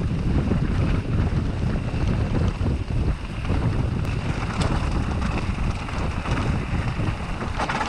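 Wind noise on the action camera's microphone as a mountain bike descends a loose gravel track at speed, with steady rumble from the tyres rolling over stones.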